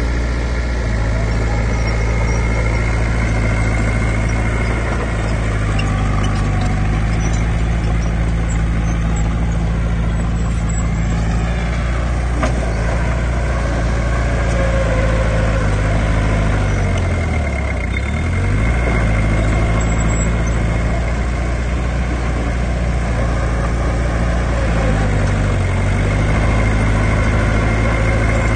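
Heavy diesel earthmoving machinery running steadily. About two-thirds of the way through, the engine speed drops sharply and then picks back up, with smaller shifts in engine speed near the start and near the end.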